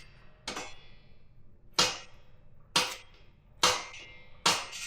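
Shrinker-stretcher jaws clacking shut on sheet steel, five sharp metallic strokes about a second apart with a brief ring after each, the first one lighter: the metal of a cab-corner patch being shrunk a bite at a time.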